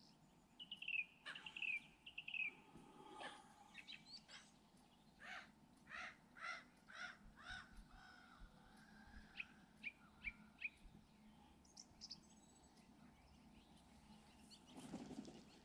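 Faint calls of geese and goslings feeding: thin high peeps at first, then a run of about eight short calls, two or three a second, then scattered single chirps.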